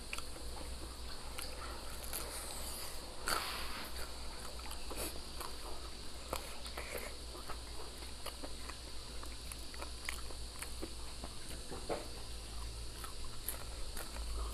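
Eating sounds from a crisp fried chicken drumstick: scattered crunches and soft chewing, with one louder crunch a little over three seconds in. A steady low hum runs underneath.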